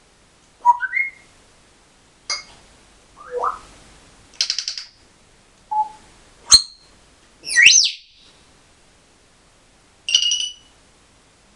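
African grey parrot whistling and calling: a string of about eight separate short sounds with pauses between them, including rising whistles, sharp clicks, a fast high beeping trill like an electronic signal, and a loud shrill squawk a little before the middle-to-late part.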